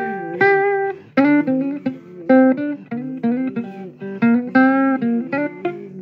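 Guitar music: a guitar picking single notes and short phrases, with a note sliding down in pitch just after the start.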